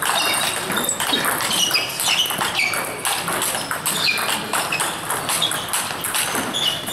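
Table tennis balls knocking on bats and bouncing on tables, from this and neighbouring tables: a busy run of quick clicks mixed with short high pings.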